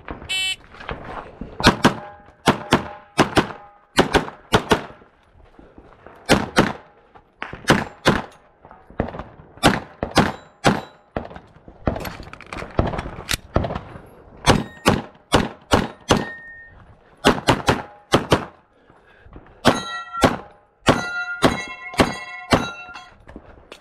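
A shot timer's short beep, then a long string of gunshots fired in quick bursts. Some shots are followed by the ring of struck steel targets, and near the end a fast run of pistol shots sets several plates ringing.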